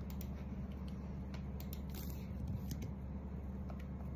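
Quiet room tone: a steady low hum with faint scattered clicks.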